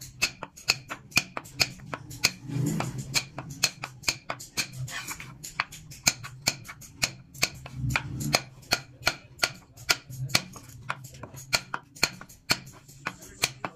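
Steel carving punch tapped into a wooden board in a quick, even rhythm of sharp metallic taps, about four a second, as a pattern is stamped into the wood.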